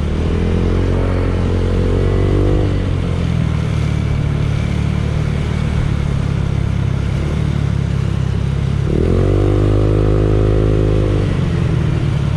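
Honda Click 125 scooter's single-cylinder engine running through an Exos X6 aftermarket exhaust, idling steadily and revved twice: once right at the start and again about nine seconds in, each rev rising and falling back over two to three seconds. The exhaust note is moderate in loudness, a pipe meant to pass the LTO's road-legal noise limit.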